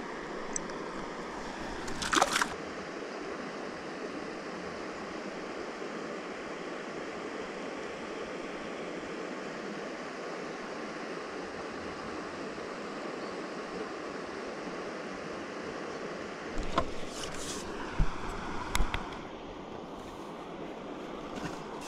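Steady rush of moving water, with a short clatter about two seconds in and a few sharp knocks near the end.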